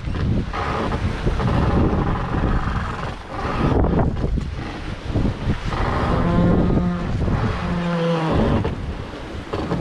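Wind and water rushing past a wooden sailboat. From about six seconds in, a run of pitched creaks comes from the newly leathered gaff working against the mast.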